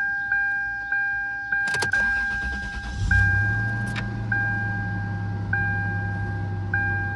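Toyota 4Runner engine cranking over about two seconds in and catching about a second later, then running at a steady idle. A dashboard warning chime beeps repeatedly throughout, about twice a second at first and about once a second after the engine starts.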